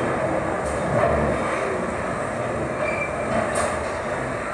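London Underground train running along the platform: a dense, steady rumble of wheels on rail with a short high wheel squeal about three seconds in, slowly growing quieter.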